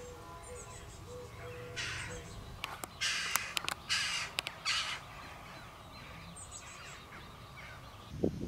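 A crow cawing: a run of short, harsh caws between about two and five seconds in. Just before the end a louder rough noise begins.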